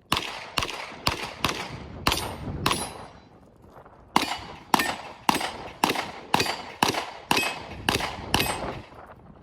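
Pistol shots fired at a fast steady pace: six shots about half a second apart, a pause of about a second and a half, then nine more shots.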